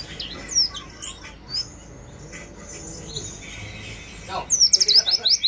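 Yellow-breasted white-eye (pleci) twittering harshly: a few scattered short falling chirps, then from about four seconds in a fast, loud run of sharp downward-sliding chirps.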